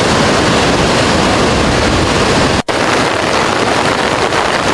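Flooded Licungo River, muddy floodwater rushing and breaking in surging waves as a steady loud roar. The sound cuts out for an instant about two and a half seconds in, then the rushing resumes.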